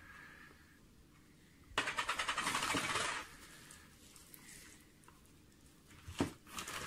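Packaging being handled: plastic, bubble wrap and paper wrapping crinkle. The loudest stretch is a dense rapid crackle lasting about a second and a half, beginning about two seconds in, with a couple of short knocks near the end.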